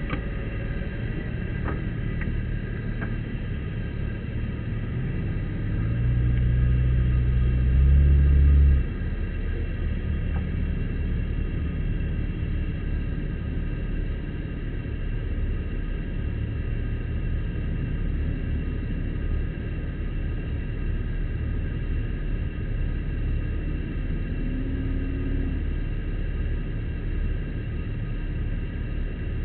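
Jeep engine running at low speed with a steady rumble; about six seconds in it picks up and revs harder for a couple of seconds, then drops back suddenly to a steady idle-like run.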